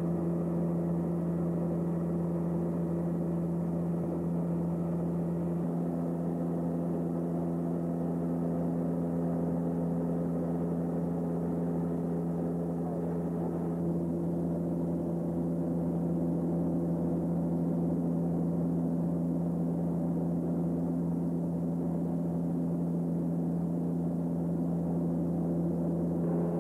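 Steady cabin drone of a Beech King Air 200's twin Pratt & Whitney PT6A turboprop engines and propellers in cruise. A strong low hum is topped by several steady tones, and another tone joins about six seconds in and drops out near the middle.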